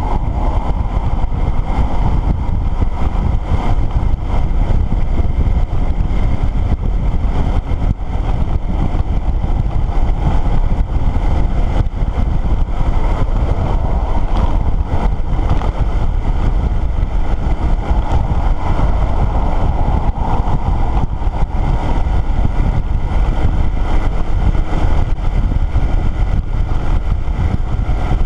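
Motorcycle riding steadily at road speed: the engine runs at an even pace under a heavy rumble of wind on the microphone, with tyre and road noise.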